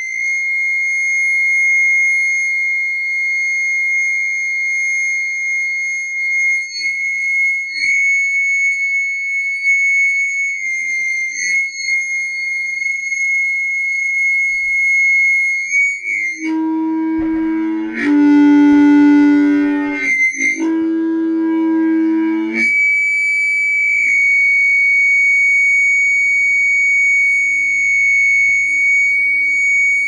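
Audio feedback through a stereo speaker: a loud, steady high-pitched squeal. About halfway through it drops to a lower howl for roughly six seconds, stepping in pitch twice, then jumps back to the high squeal.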